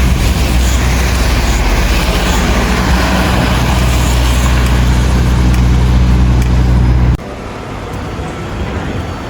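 Street traffic noise with a nearby motor vehicle's engine running as a steady low rumble. The rumble cuts off abruptly about seven seconds in, leaving quieter street noise.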